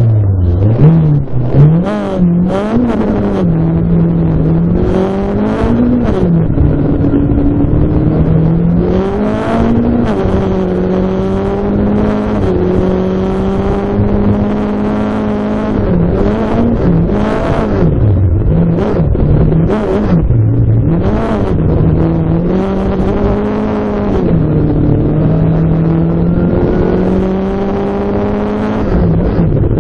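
Rally car engine heard from inside the cabin at full stage pace, its pitch climbing under acceleration and dropping sharply at each gear change or lift, over and over.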